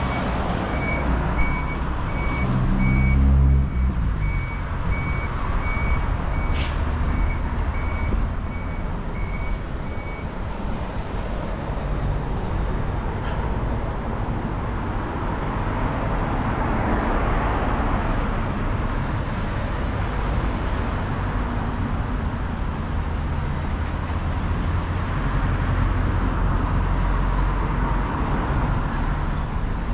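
Street traffic running steadily, swelling as a vehicle passes about halfway through. An evenly repeating high electronic beep sounds over it for the first third or so, then stops.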